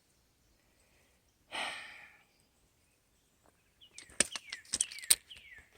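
A person sighing once, a breathy exhale about a second and a half in. Near the end comes a run of sharp clicks and short falling chirps.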